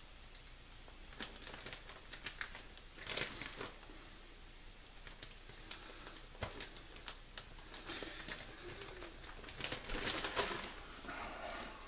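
Plastic bag of shredded mozzarella cheese crinkling and rustling as it is handled and opened, with scattered clicks and a louder spell of rustling around 8 to 10 seconds in. A short pitched sound comes near the end.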